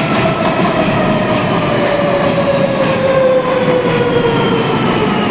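Madrid Metro electric train pulling into an underground station: wheels rumbling on the rails under a whine that falls slowly in pitch as the train slows.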